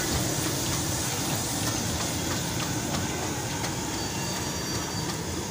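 A large flatbread deep-frying in a steel karahi of hot oil: a steady sizzle over a low street rumble.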